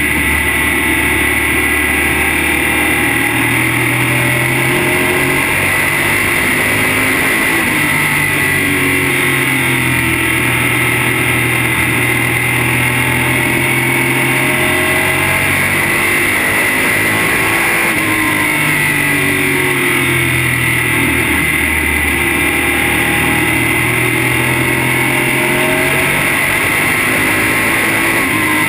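Modified race car's V8 engine heard from inside the cockpit, loud and steady, its pitch climbing under throttle and dropping back in long repeating cycles as the car laps the track.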